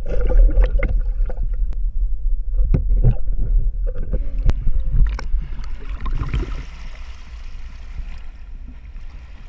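Seawater sloshing and splashing close to the microphone as someone wades in the sea with a hand net, with a heavy low rumble of moving water and several sharp knocks. From about six seconds in it settles into a steadier hiss of water.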